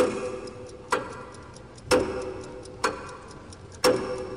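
A clock ticking about once a second, alternating louder and softer strokes, each tick ringing briefly with a pitched tone.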